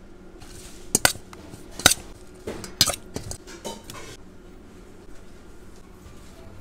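Utensils clinking and knocking against a metal mixing bowl and a serving bowl as salad is tossed and plated. Several sharp clinks come between about one and four seconds in, the loudest near two seconds, then it goes quieter.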